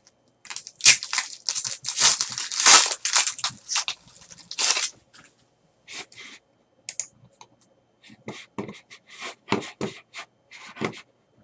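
A trading card pack wrapper being torn open and crinkled for about the first five seconds, then short scattered rustles and clicks of cards being handled.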